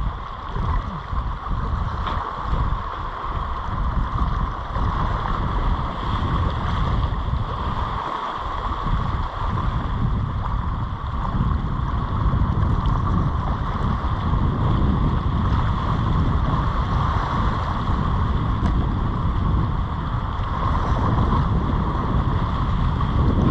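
Wind buffeting the microphone as a fluctuating low rumble, over a steady rushing hiss of sea water washing around the rocks.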